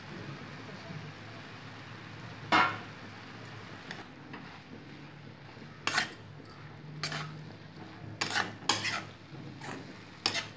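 Metal spatula stirring grated vegetables in a metal wok-style pan, scraping and knocking against the pan, over a low steady hum. There is one sharp clank about two and a half seconds in, then a run of clinks and scrapes in the second half.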